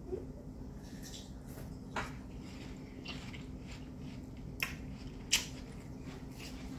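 Eating watermelon with a metal spoon: the spoon scooping the wet flesh, and chewing, with a few sharp clicks, the loudest about two seconds, four and a half seconds and five seconds in.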